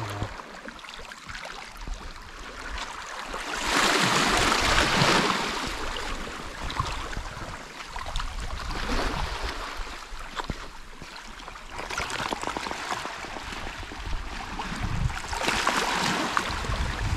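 Small sea waves washing over a rocky, pebbly shore, a rushing wash that swells and fades every few seconds, loudest about four seconds in.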